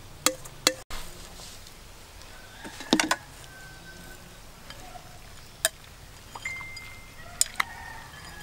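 A metal spoon and chopsticks tossing salad in a bowl: scattered sharp clinks against the bowl, the loudest a quick cluster about three seconds in, with two more near the end. Faint short pitched calls sound in the background.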